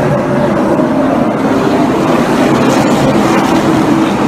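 A pack of stock cars racing on a dirt oval, their engines running hard as they pass; loud and steady throughout.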